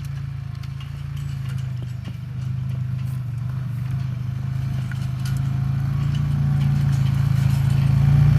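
An engine running steadily at idle with a low, rapid pulsing hum, growing gradually louder toward the end.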